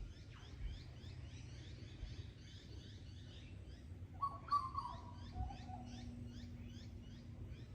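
Australian bush ambience: a steady chorus of short high chirps repeating about three times a second, with one louder, lower bird call falling in pitch about four seconds in.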